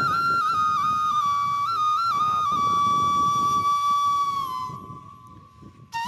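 Hummers (bhomor) on a large traditional Bengali tepa kite whistling in the wind: one steady high tone that wavers in small pitch steps, slides down and fades away about five seconds in, then comes straight back at the end.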